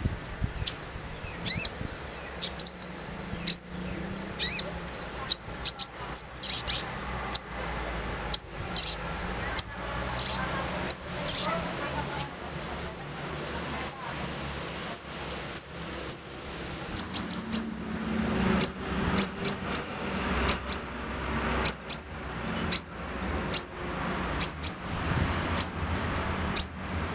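Sogon bird singing its rough 'nembak kasar' song: a long series of sharp, high chips that drop in pitch. They come singly or in quick runs of three or four, over a faint steady background hum.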